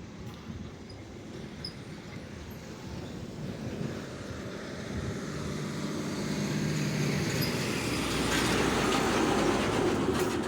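Passing road traffic: a heavy vehicle's engine hum and tyre noise grow steadily louder as it approaches, loudest a second or two before the end.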